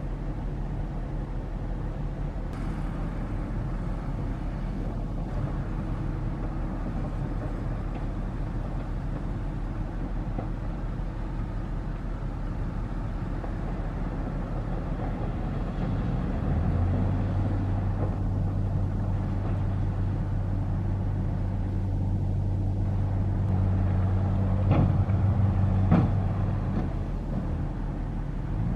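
Heavy diesel engine of construction machinery running steadily; about sixteen seconds in it grows into a louder, steady low drone. Two sharp knocks near the end.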